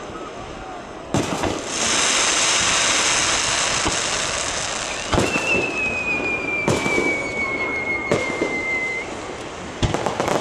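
Aerial firework shells bursting. A sharp bang comes about a second in, followed by a loud crackling hiss of sparks lasting about three seconds. Four more bangs follow in the second half, with a long whistle falling slightly in pitch underneath.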